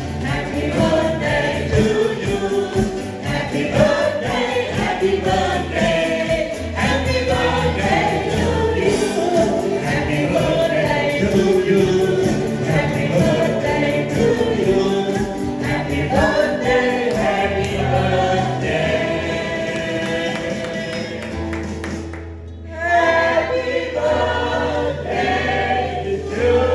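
A group of men and women singing together, with acoustic and electric guitars and a steady bass line. There is a brief pause near the end before the singing and playing resume.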